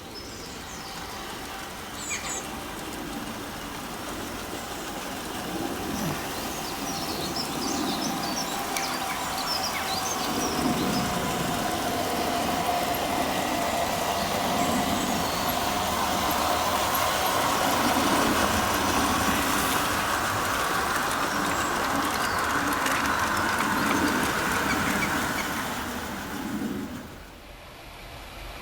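Two Märklin gauge 1 Krokodil model electric locomotives hauling a freight train, their motors and gears whining over the rumble of wheels on track. The sound grows louder as the train approaches, then drops away sharply near the end.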